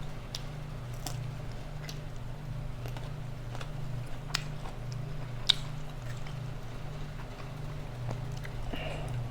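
A person eating, with chewing and scattered short clicks and smacks from handling the food, over a steady low hum.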